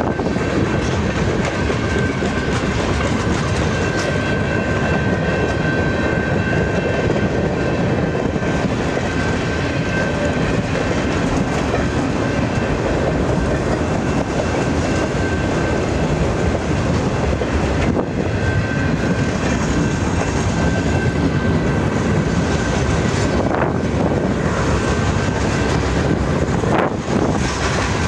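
Freight train cars rolling past at speed: steel wheels clacking over the rail joints over a steady heavy rumble, with a thin, steady high ring running through much of it.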